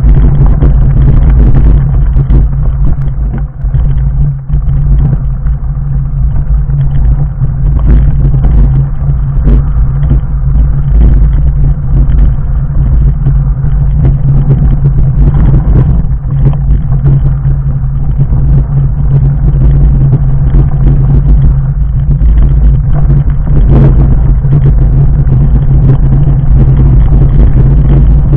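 Loud, steady low rumble with constant small knocks and rattles. This is a fat bike's 4-inch Schwalbe Jumbo Jim tyres rolling over loose gravel and stones, shaking the bike-ridden camera and its microphone.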